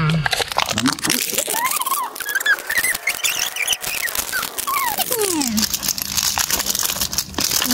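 Clear plastic shrink wrap crinkling and tearing as it is peeled off a plastic Mini Brands capsule ball. From about a second in to just past five seconds there are a few squeaky sliding tones, rising and then falling.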